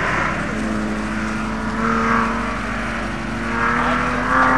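A classic Porsche 911's flat-six engine is worked hard through a cone slalom, revving and easing off, its pitch climbing toward the end. Short tyre squeals come about two seconds in and again near the end.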